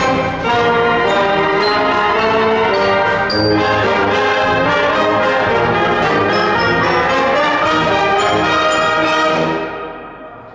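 Community concert band of brass and woodwinds playing a march, which ends on a final chord about nine seconds in that rings out and fades.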